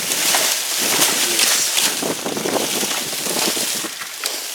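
Wind buffeting the microphone, with rustling and light knocks from trash being rummaged through by hand.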